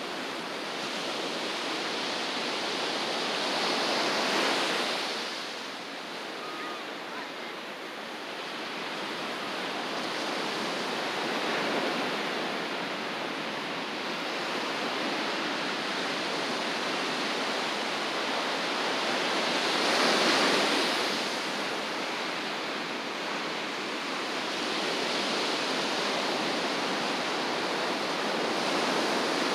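Ocean surf washing onto a beach: a steady rush that swells each time a wave breaks, loudest about four seconds in and again around twenty seconds in.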